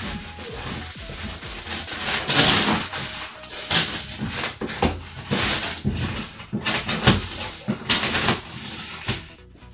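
A large cardboard box being opened by hand: packing tape and cardboard ripping and rustling in irregular bursts.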